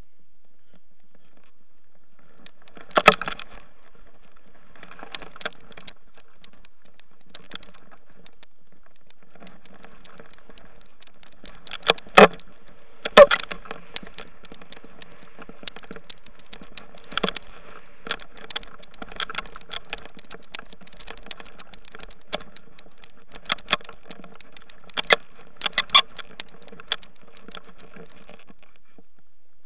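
Handling noise from an action camera on a hand-held pole while riding through powder snow: crackling rubs and scattered sharp knocks over a steady hiss. The loudest knocks come about three seconds in, twice around twelve and thirteen seconds, and in a cluster near the end.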